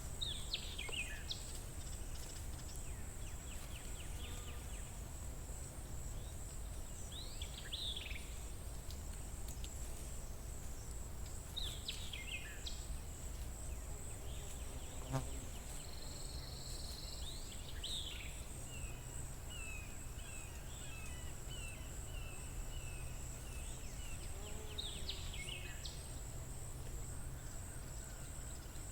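Outdoor spring ambience. Songbirds give a short call that slides downward every few seconds, and in the second half a bird sings a run of quick repeated notes. Under them is a steady high-pitched insect-like drone and a low rumble.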